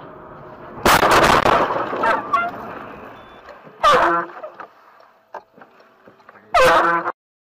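Steady road noise inside a car, then a loud crash of a collision about a second in that dies away over the next second. Two short, loud, pitched blasts follow a few seconds apart, and the sound cuts off shortly before the end.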